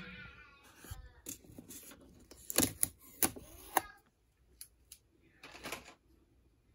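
Sharp plastic clicks from handling a multicooker's pressure-cooking lid and its pressure-release switch: a few faint ones, then four louder ones within about a second and a half, followed by a short soft rustle.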